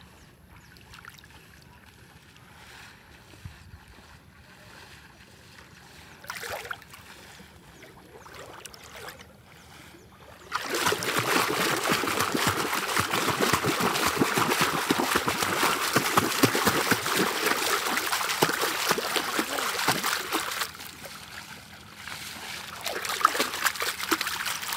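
Lake water being splashed and churned as a man wades and beats the water to drive fish into his nets. The splashing starts suddenly about ten seconds in, runs loud for about ten seconds, then drops back to smaller splashes; before it there is only faint water noise.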